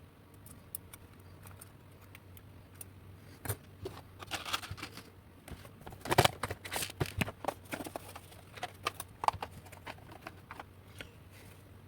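Irregular small clicks, taps and rustles of electronic kit parts and tools being handled at a workbench, busiest and loudest about six to seven seconds in.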